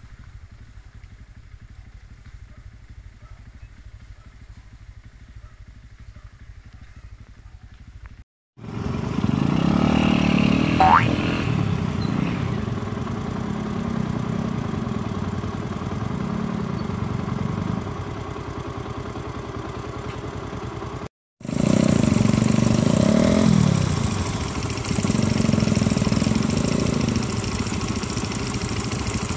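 Pit bike engines running and revving as the bikes climb through mud. Faint for the first few seconds, then much louder, with a brief rising whine at about 11 s and short rises and falls in engine pitch later on.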